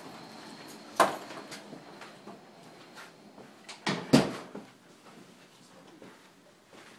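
Footsteps climbing a stairway: a few irregular thumps and knocks, the loudest pair about four seconds in, with lighter scuffs between.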